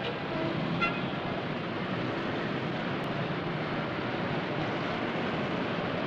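Dense city traffic: many small cars and lorries running past, a steady mix of engine noise and tyres, with a short horn toot about a second in.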